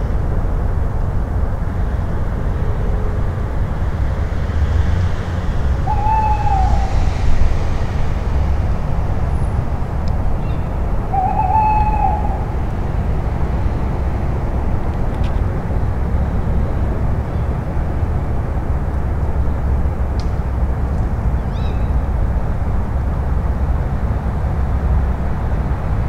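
Tawny owl calling twice, about six and eleven seconds in, each call a short arching note. A steady low rumble runs underneath throughout.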